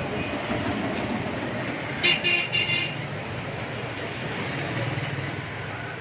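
Road traffic running steadily, with a vehicle horn sounding once, briefly, about two seconds in.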